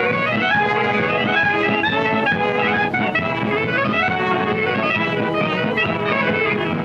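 A band of brass and clarinets playing a melody, on a 1929 sound-film recording with little treble.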